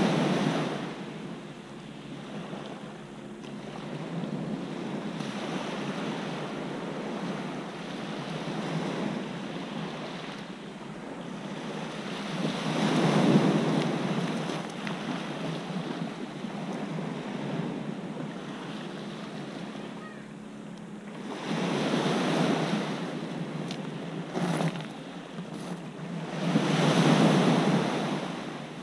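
Small sea waves breaking and washing up a pebble beach, with a steady wash between four louder surges.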